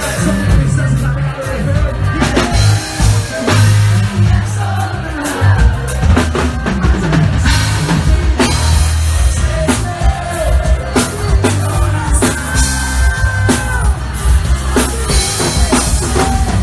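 Live forró band playing loudly, led by a drum kit with kick and rim hits over a heavy bass, with held melodic notes above.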